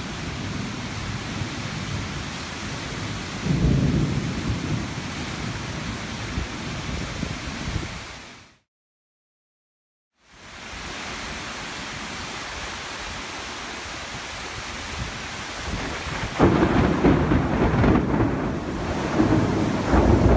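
Thunderstorm: a steady hiss of rain with rolling thunder that swells up twice, once early and again more strongly in the last few seconds. The sound fades out to silence for about two seconds in the middle.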